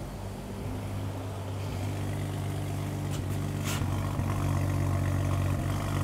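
BMW N55 3.0-litre turbocharged inline-six idling, heard at the exhaust tailpipe, with an intermittent misfire: a little stumble in the exhaust note from a misfiring cylinder. It grows slowly louder.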